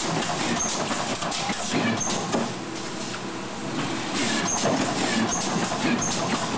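All-electric RJE Magellan LD automatic corrugated boxmaker running in production: a steady mechanical rumble with frequent clacks and knocks, and brief high squeaks now and then.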